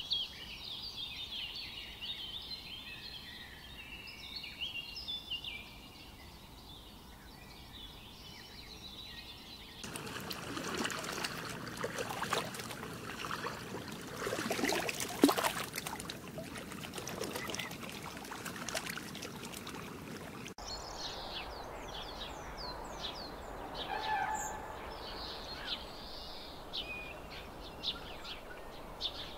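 Small birds chirping in quick high twitters, broken off about ten seconds in by a stretch of dense crackling and clicking noise. A sudden cut about twenty seconds in brings another run of short high chirps.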